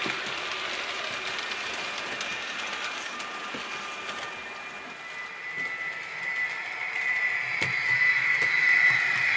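H0-scale model train running on the layout: a steady rush of wheels rolling on the rails as the coaches pass. From about six seconds in, a model locomotive's motor whine grows louder as it approaches.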